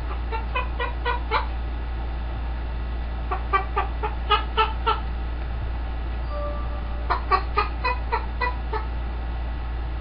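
Green-winged macaw imitating a chicken's clucking: three runs of short clucks, five to seven in each, a few seconds apart, over a steady low hum.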